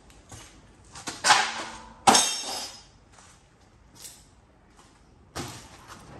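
Pieces of scrap metal clanking as they are handled and tossed into scrap bins while being sorted: two loud clanks with a short metallic ring, about a second and two seconds in, and lighter knocks and rattles around them.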